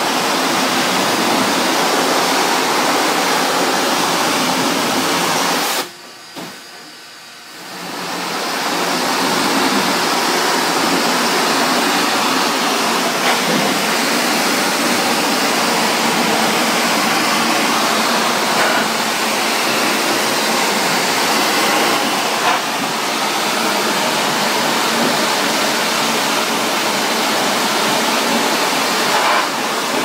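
Pressure-washer spray from a handheld wand blasting water into the fins of an air-conditioning condenser coil, a steady hissing rush. It cuts off suddenly about six seconds in and comes back after a second and a half.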